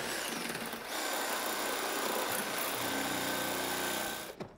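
Reciprocating saw running steadily as its blade cuts through the nails under a wooden stair nosing, stopping near the end.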